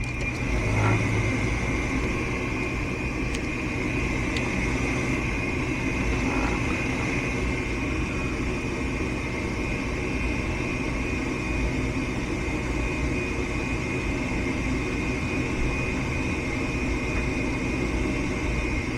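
Goodman gas furnace's draft inducer motor running steadily, a low hum with a steady high whine over it, as the furnace purges before the igniter comes on.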